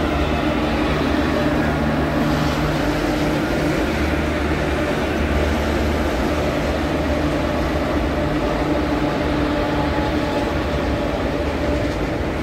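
Indian Railways electric-hauled coal freight train passing close by: two electric locomotives followed by coal-loaded open wagons. A loud, steady rumble of wheels on rail with a steady hum through it.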